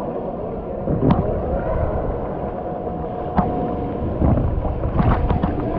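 Swimming-pool water lapping and splashing right at the microphone, with a few sharp slaps about a second in, past the halfway mark, and a quick cluster near the end.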